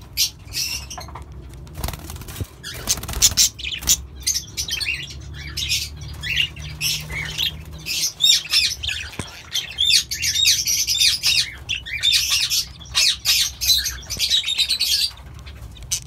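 Budgerigars chattering: a steady stream of short, high chirps and warbles, growing busier in the second half.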